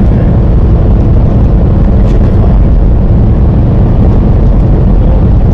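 Semi-truck driving: a steady, loud, low drone of engine and road noise.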